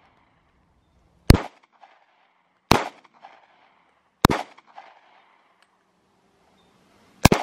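Four handgun shots: three about a second and a half apart, then a fourth after a longer pause of about three seconds, each followed by a short echo.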